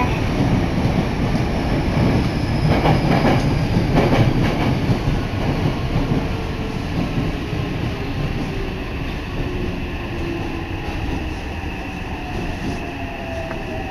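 Yokohama Municipal Subway Blue Line train running through a tunnel, heard from inside the car: steady rumble with a few rail-joint clacks in the first half. In the second half a whine slowly falls in pitch and the rumble eases as the train slows.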